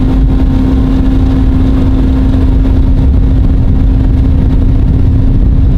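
Boat's outboard motor running at a steady speed, one unchanging hum under a loud, rough rush of wind and water noise.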